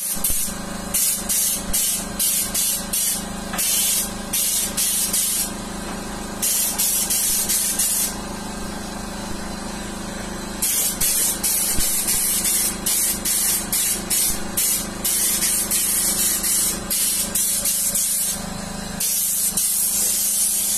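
Paint spray gun hissing as the trigger is pulled on and off, mostly in short bursts with a few longer passes, spraying matt black vinyl paint over the inside of a VW Beetle body shell. A steady low hum runs underneath.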